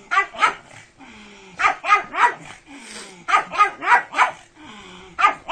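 A pug barking in quick runs of two to four barks, with short pauses between the runs.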